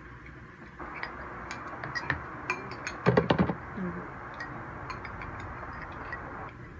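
A spoon clinking and scraping against a bowl as food is scooped and eaten, with scattered light clicks and a quick run of clinks about three seconds in, the loudest part.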